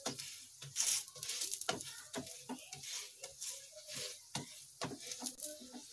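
Oiled stuffed cauliflower paratha sizzling on a hot tawa as a wooden spatula presses it down and pushes it around, with many light taps and scrapes of the spatula against the griddle.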